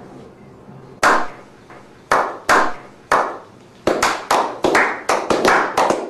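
Handclapping: a few scattered claps, then from about four seconds in a quick, steady clapping rhythm of about four to five claps a second.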